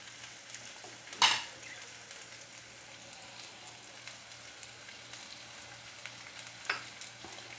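Chopped onion, garlic, green chili and bell pepper sautéing in oil in a nonstick wok: a steady sizzling hiss. A sharp clack about a second in and a fainter click near the end.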